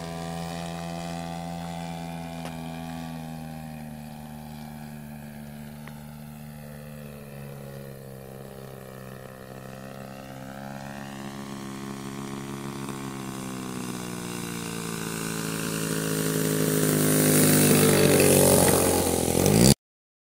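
Gasoline engine and propeller of a 42% scale Solution XX RC plane droning in flight. It fades as the plane flies off, then grows louder as the plane comes in low and passes close, the pitch dropping as it goes by, and the sound cuts off suddenly near the end.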